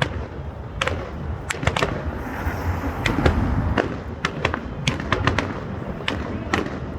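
Fireworks going off: an irregular string of sharp bangs and crackles, with a hissing burst about two to three seconds in.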